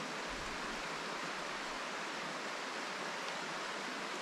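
A creek flowing, a steady rush of water with no breaks.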